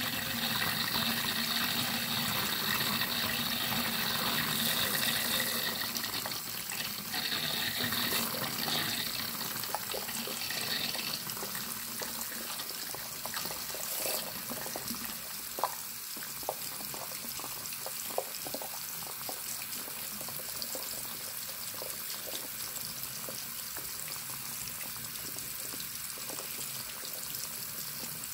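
Water running steadily from a bathroom sink faucet into the basin and over a hand held in the stream. The water gets a little quieter after about ten seconds.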